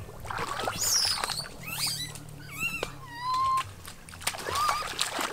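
A small puppy whimpering and yelping in many short, high, squeaky whines that bend up and down in pitch, with light splashing from feet wading through shallow water.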